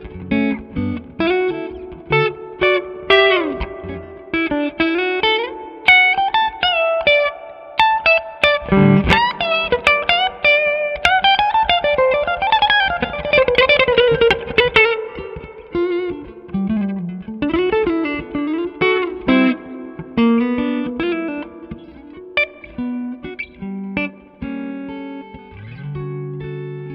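PRS Silver Sky electric guitar played through a SineWave Sterling Custom Signature amplifier: picked single-note lead lines with string bends and quick runs, settling into held chords near the end.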